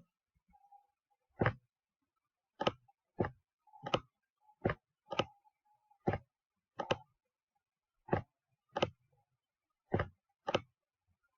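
Computer keyboard keys pressed one at a time: about a dozen sharp clicks, unevenly spaced half a second to just over a second apart, as a line of text is typed slowly.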